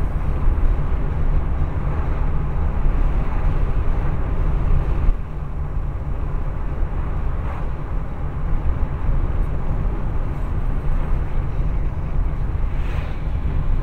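Steady low rumble of a car driving, heard from inside the cabin through a dashcam's built-in microphone, easing slightly about five seconds in.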